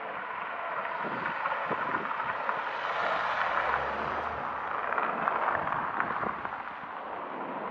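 A Kia SUV driving past close by: tyre and engine noise that swells, is loudest through the middle, and fades away near the end.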